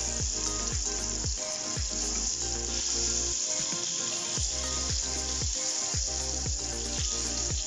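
Background music with a steady kick-drum beat that drops out for about a second midway. Under it is a steady high hiss of butter sizzling as it melts in a stainless-steel saucepan.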